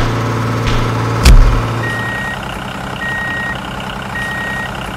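Vehicle engine hum with a heavy thump about a second in, then three short, even high beeps a little over a second apart, like a reversing alarm.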